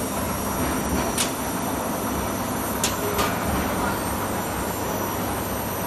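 Steady machine-shop background noise: a low machinery rumble and hum with hiss, broken by three faint sharp clicks, one about a second in and two close together around three seconds in.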